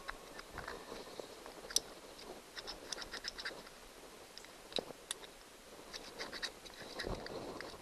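Small screwdriver tip scraping and picking at carbon buildup inside the end cap of a Johnson 90 hp outboard's starter motor: a run of light scratches and clicks, bunched around three seconds in and again near six seconds.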